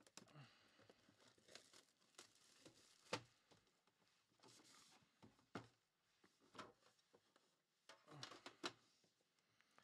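Faint handling of a cardboard trading-card box being opened: short rustles and scrapes of the cardboard lid and flaps with scattered light clicks and taps, the sharpest click about three seconds in, as the inner case is drawn out.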